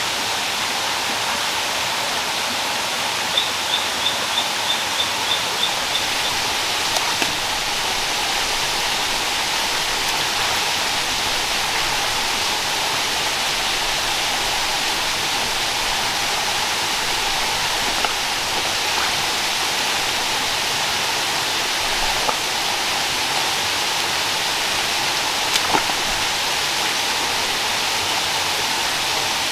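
Shallow rocky forest stream running, a steady rush of water over stones. About three seconds in comes a quick run of about eight high chirps, and a few faint clicks follow later.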